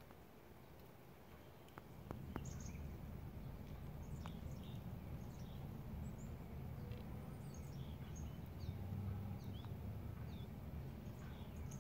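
Outdoor ambience: small birds chirping now and then with short high calls, over a low rumble that grows louder about two seconds in, with a few faint clicks near the start.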